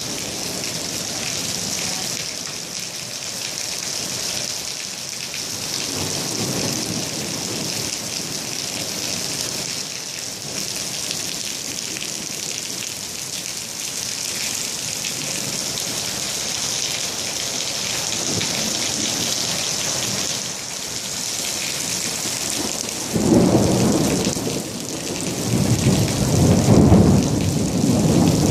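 Heavy rain falling steadily, with a hiss throughout. Near the end a deep rumble of thunder comes in, fades briefly, then swells again louder.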